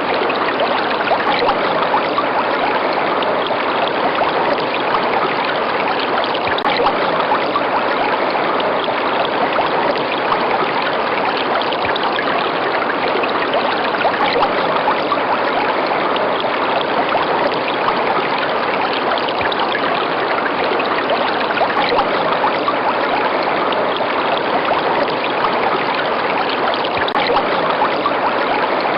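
River water running and babbling steadily over rocks, an even rushing stream with no pauses.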